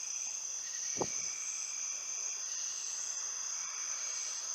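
Steady chorus of crickets, several unbroken high pitched trills layered together, with one soft low thump about a second in.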